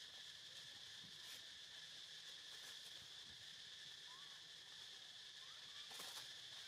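Faint, steady high-pitched drone of insects, with a few soft clicks or rustles, the clearest about six seconds in.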